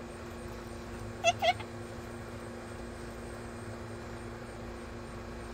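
White cockatoo giving two short, quick calls a little over a second in, over a faint steady hum.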